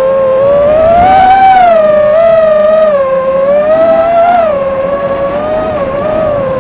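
FPV racing quadcopter's motors and propellers whining, the pitch rising and falling as the throttle changes, with short hissy surges on the harder climbs.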